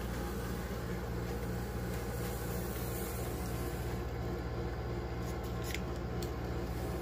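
A 1/24 scale vintage midget racer slot car running laps on a plastic slot-car track: the steady buzz of its small electric motor and gears with the car rattling in the slot, and a few light clicks about five to six seconds in.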